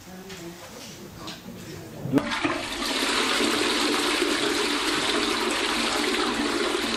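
A toilet flushing: a steady rush of water that starts abruptly about two seconds in after a quiet stretch.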